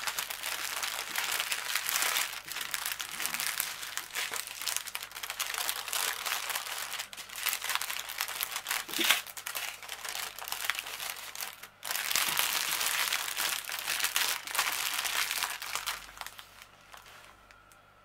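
Small clear plastic bags of diamond painting drills crinkling as they are handled and gathered into a stack. There is a brief break about two-thirds of the way through, and the crinkling dies away near the end.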